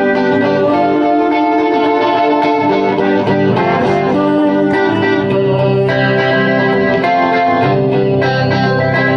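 Music led by a guitar played through effects, sustained chords at a steady loud level.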